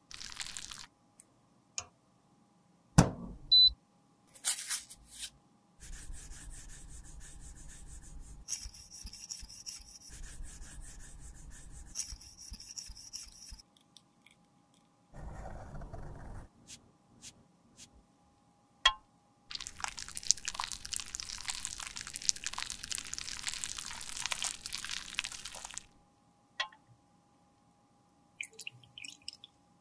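Metal spatula scraping and stirring waxy red lipstick, against a small glass beaker and inside a lipstick tube, in several rasping bouts a few seconds long. A sharp click or tap comes about three seconds in.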